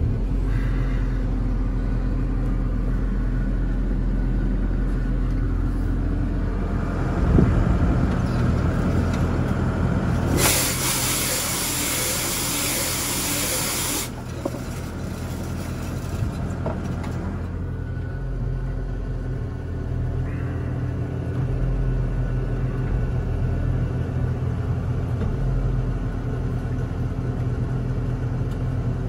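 Ravo 540 STH street sweeper running steadily, heard from the cab, with its extra third sweeping brush turning. A brief louder rumble comes about seven seconds in, and a loud hiss lasts some four seconds from about ten seconds in.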